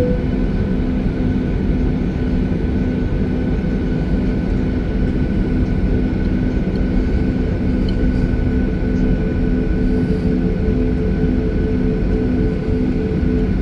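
Airliner cabin noise in flight: steady jet engine and airflow drone with a constant hum of several steady tones.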